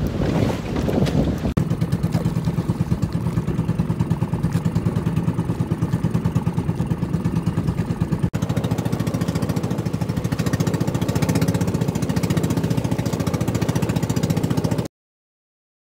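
Outrigger boat (bangka) engine running steadily under way, a fast, even chugging. It cuts off abruptly near the end.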